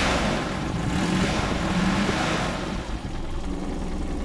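Toyota 5K four-cylinder petrol engine running just after starting, louder with a hissy edge for the first two and a half seconds, then quieter. It starts and runs on its ignition coil newly wired through a ballast resistor.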